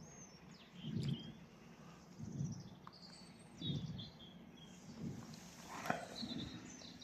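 Birds calling and chirping over a reedbed marsh, short high notes scattered throughout, with low muffled puffs about every second and a half and a single click near the end.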